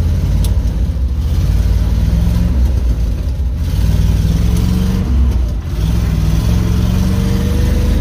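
Old grain truck's engine heard from inside the cab, pulling away and accelerating. The pitch climbs through the gears, with two short breaks for gear changes about two and a half and five and a half seconds in, over a heavy low rumble.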